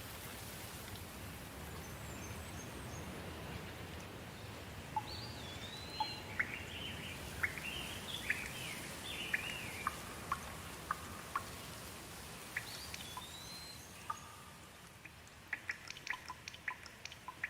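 Steady rain with birds calling over it: a run of chirps and short rising-and-falling whistles through the middle. Close water drips tick irregularly, coming thick and fast near the end.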